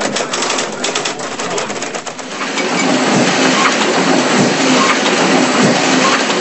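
Dense, noisy sound-effect track of an animated TV title sequence, crackling and rushing rather than music, growing louder about two and a half seconds in.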